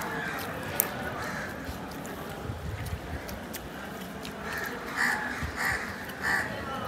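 Crows cawing repeatedly, loudest in three caws near the end. A single sharp click about a second in.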